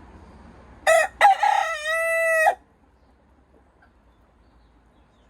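Cockerel crowing once: a short opening note about a second in, then a long held note that cuts off sharply.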